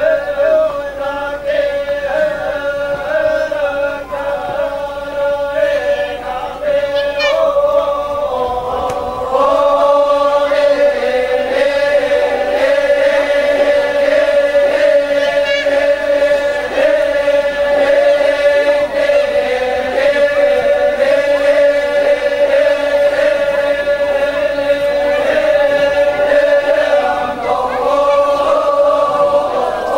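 A group of voices chanting together in long, held notes. The chant steps up in pitch and grows louder about a third of the way in.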